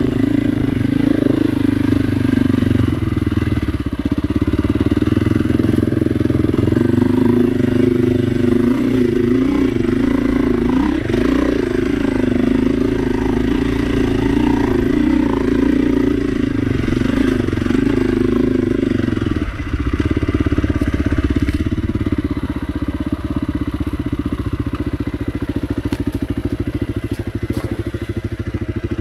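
KTM dirt bike engine running at low, varying revs as the bike is ridden slowly along a soft, sandy single-track trail; the engine note drops about two-thirds of the way through.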